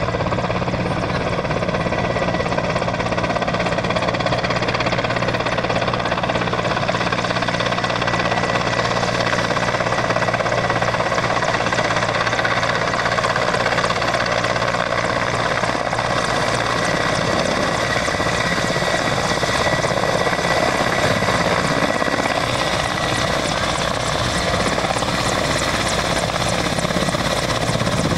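Mil Mi-8 military transport helicopter flying low and closing in: the steady beat of the main rotor over the running twin turboshaft engines, with a thin, steady high turbine whine.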